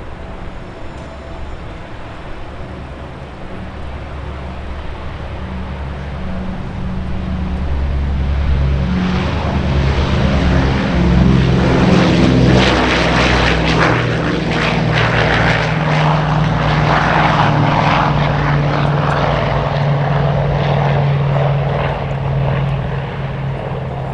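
Lockheed C-121 Constellation flying past, its four big radial piston engines droning. The drone builds to its loudest about halfway through, then eases a little as the pitch drops while the aircraft passes.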